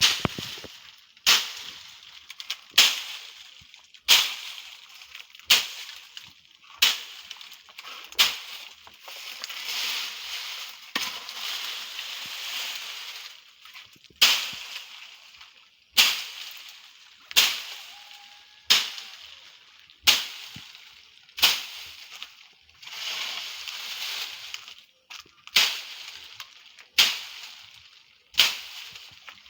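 Harvested dry bean plants being beaten with a stick to thresh them: a sharp whack about every second and a half, each followed by rustling of pods and beans. Twice the strokes pause for a few seconds of steady rustling.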